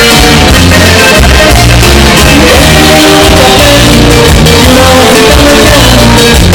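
Live band playing a Latin song with singing, recorded very loud, close to full level.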